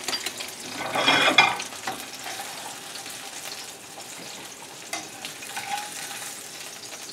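Sesame-crusted tuna steaks sizzling in a hot frying pan as they are lifted out with metal tongs. The sizzle swells louder about a second in, then settles to a steady hiss with a few light clicks.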